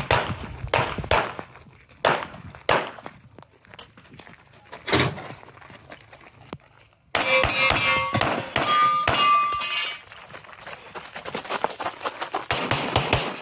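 Pistol shots during a practical-shooting stage run: single shots and pairs spaced over the first several seconds, then from about seven seconds in a loud stretch of fire with steel targets ringing on hits, and a fast string of shots near the end.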